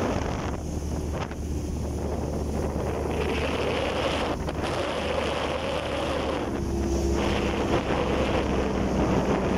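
Motorboat engine running steadily, with wind buffeting the microphone and water rushing and splashing along the hull.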